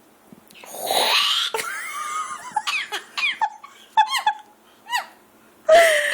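Hawk-headed parrot making a raspy, loogie-hocking throat-clearing noise about a second in, followed by a string of short squeaky chattering calls, and another raspy hock near the end.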